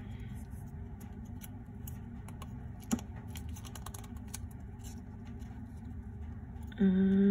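Small plastic clicks and finger handling as the cargo box is worked loose from a miniature diecast toy truck's chassis, with one sharp click about three seconds in, over a steady low hum. Near the end a short hummed voice sound.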